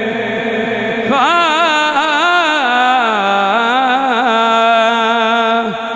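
A man's solo voice singing a naat through a microphone, holding a note at first and then, about a second in, breaking into a long drawn-out phrase whose pitch bends and wavers in ornamented turns.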